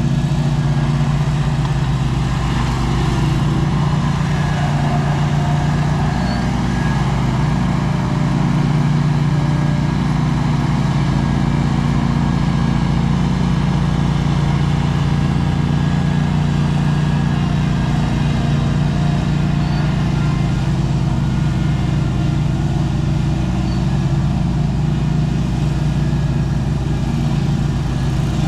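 An engine running steadily at an even speed, its pitch holding unchanged.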